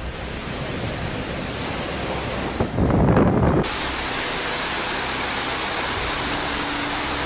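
Storm wind and rain with a loud gust buffeting the microphone, then a sudden change to the steady rush of floodwater pouring down concrete stairs.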